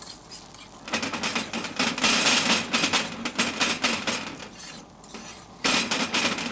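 A metal fork scraping and clattering in a steep-sided iron omelette pan while the pan is shaken over a gas burner, drawing in the edges of a setting omelette. The clatter starts about a second in, eases briefly near the end, then starts up again.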